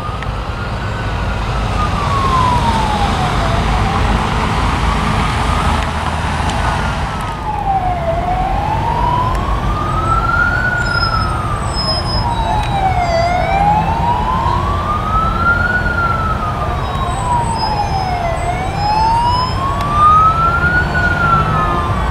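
Emergency vehicle siren wailing slowly up and down, each rise and fall taking about five seconds, over the steady rumble of motorway traffic. A loud rushing hiss stops about a third of the way in.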